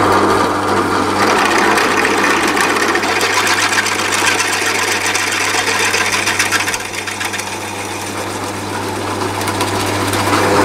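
A bench drill press running and drilling out bolt holes in a metal door hinge, so the holes can be retapped to take M8 bolts. The motor hums steadily under the cutting noise of the bit. The sound eases for a few seconds past the middle, then rises again near the end.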